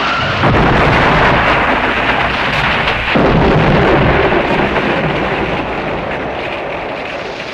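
A loud, long rumbling blast from a film soundtrack. It swells up just after the start, surges again about three seconds in, then slowly fades.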